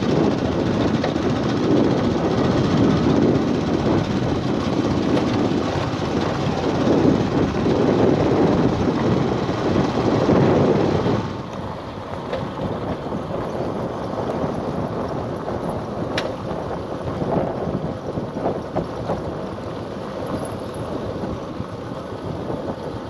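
Steady vehicle noise, loud for about the first eleven seconds, then dropping to a lower, steadier level.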